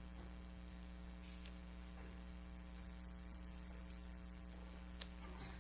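Steady electrical mains hum in the pulpit microphone system, with its evenly spaced overtones, and a faint click about five seconds in.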